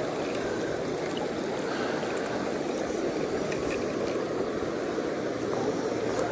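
Shallow, clear river flowing over rocks: a steady rush and ripple of moving water.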